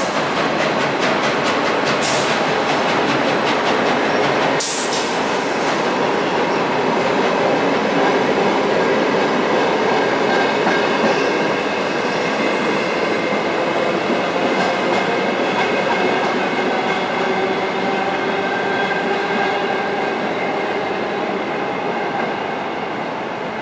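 Queensland Rail electric suburban train running past, its wheels rumbling steadily on the rails with a couple of sharp clicks in the first few seconds. The sound eases off near the end as the train goes into the tunnel.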